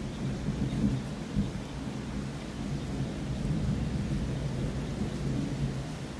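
Thunder rumbling in a long low roll, swelling louder twice about a second in.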